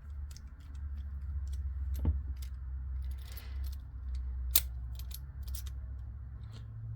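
Small metal clicks and clinks of padlock parts being handled as the nut and bolt are dropped back into an American lock body and tightened, with one sharper click about four and a half seconds in, over a low steady hum.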